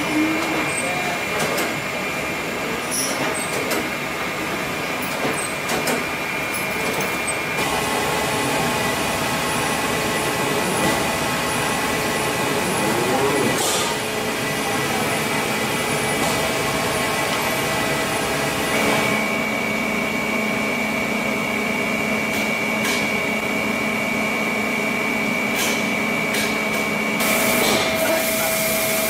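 Industrial machinery running: a thread rolling machine turning its two grooved dies on a steel bar, a steady hum with a few constant high tones and occasional clicks. The sound changes abruptly about a quarter of the way in and again past halfway.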